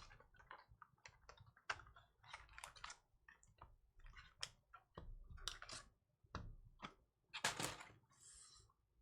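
Faint, irregular clicks and rustles of a cardboard hobby box and foil-wrapped card packs being handled, with a louder crinkle about seven and a half seconds in.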